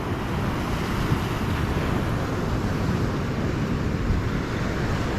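Wind buffeting the microphone over the steady wash of ocean surf breaking on the shore.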